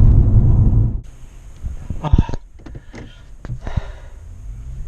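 Low rumble of road noise inside a car cabin while driving with a loaded trailer, cutting off abruptly about a second in. After it come a few short knocks and rustles.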